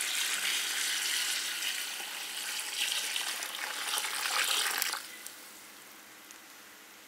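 Water being poured into a pot of mutton cooked in oil, a steady pour that stops about five seconds in and leaves a faint hiss.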